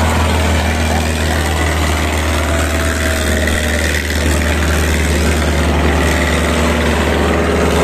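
Diesel tractor engines running hard and steady, labouring under full load in a tractor tug-of-war.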